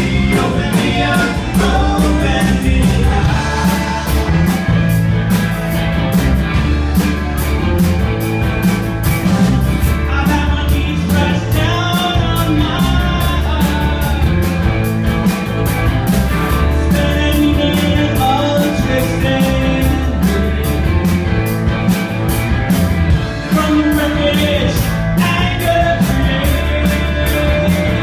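Live rock band playing, with electric guitars, bass and drums keeping a steady beat.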